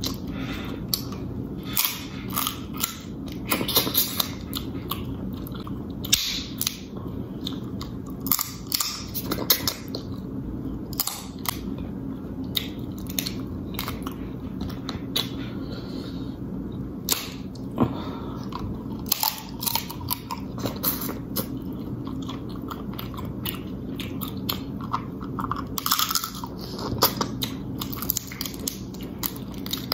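Close-miked eating: snow crab leg shells snapped and cracked apart by hand in irregular sharp crackles, mixed with chewing and wet mouth smacking.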